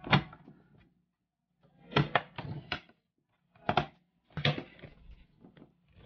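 Plastic snap-fit clips of an HP Notebook 14 laptop's bottom case clicking into place as the case is pressed down. Sharp clicks, one at the start and then in quick clusters about two, four and four and a half seconds in.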